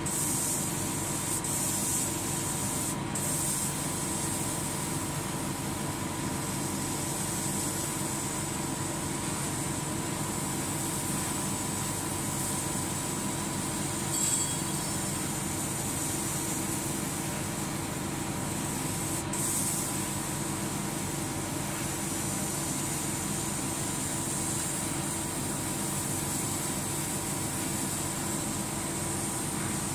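Steady hum and hiss of a 100 W CO2 laser cutting machine running as it cuts felt, with two short ticks, a few seconds in and again about two-thirds through.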